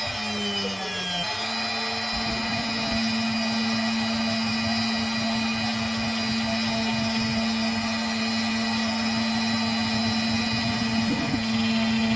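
CNC router spindle running with a steady whine; its pitch sags briefly near the start and comes back up.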